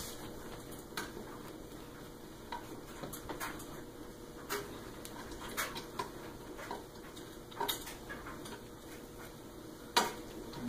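Scattered light clicks and ticks of a hand screwdriver tightening the screws that hold a ceiling fan's cover in place, with a louder knock near the end.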